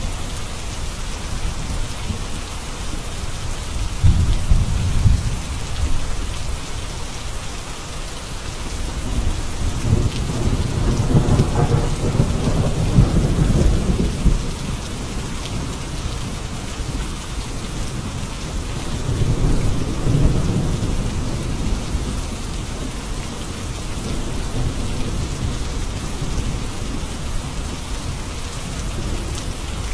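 Steady heavy rain falling, with rolls of distant thunder rumbling low beneath it: a short one a few seconds in, a longer, stronger roll about ten to fifteen seconds in, and another around twenty seconds.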